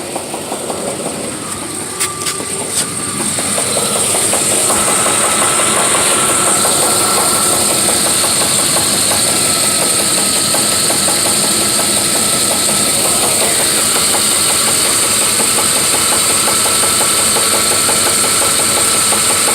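1993 Chevy Silverado's 5.0-litre small-block V8 running with a rapid knock, which the owner hears coming from the flex plate area and fears may be a spun bearing. The engine is a little quieter for the first few seconds, with two short clicks, then runs steadily louder.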